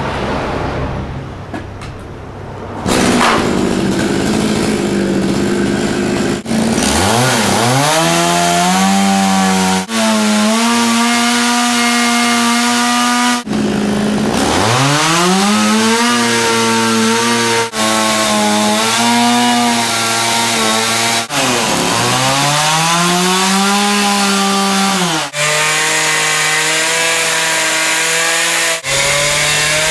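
Zenoah two-stroke chainsaw revving hard and running at high revs while carving wood. Its pitch sweeps sharply up each time the throttle opens, then holds steady.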